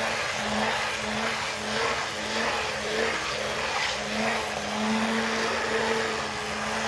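Electric hand blender running steadily with a constant motor hum, churning down in a thick pot of haleem to mash the cooked lentils, wheat and meat into a stringy, smooth paste.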